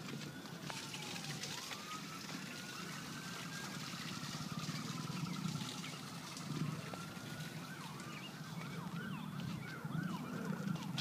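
Emergency vehicle siren, a slow rising and falling wail that switches to a fast yelp about eight seconds in, over a low steady rumble.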